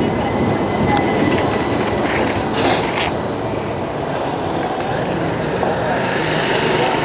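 Battery-powered city tram passing close by and drawing away, a faint steady whine that fades out about three seconds in, with a brief hiss near the middle. Under it runs the constant rush of wind and rolling noise from riding a bicycle alongside.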